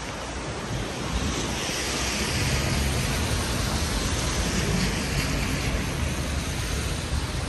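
Wind gusting against the microphone: an uneven low rumble under a rushing hiss that swells about a second and a half in and eases near the end.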